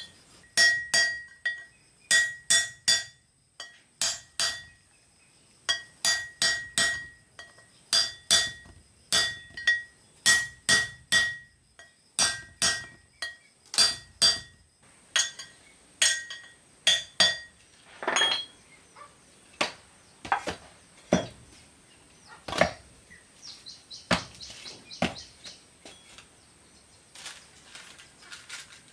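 Hammer blows on a metal part, in quick groups of two to four strikes, each leaving a short metallic ring. About halfway through the blows come more sparsely and ring at a lower pitch.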